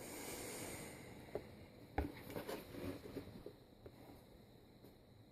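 Handling noises: a brief hiss, then scattered light clicks and knocks, one sharper knock about two seconds in, fading to quiet room tone.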